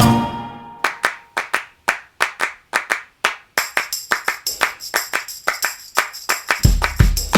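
Background music: a percussion break of evenly spaced handclaps, joined by a high shaker-like layer about halfway through and a heavy bass beat near the end.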